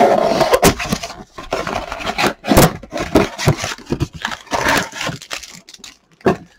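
Cardboard trading-card blaster box being pried open and its stack of foil card packs slid out: a run of irregular scrapes, rubs and tearing of card, with a few short sharp knocks.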